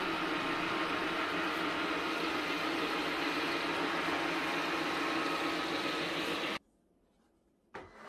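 Airmade Glide S cordless wet-mop cleaner running, its motor and twin roller brushes going as it is pushed over the floor, a steady hum that cuts off suddenly about six and a half seconds in.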